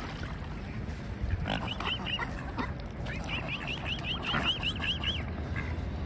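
Mute swans and mallards calling at close range: runs of short, high calls, several a second, about a second and a half in and again from about three to five seconds in.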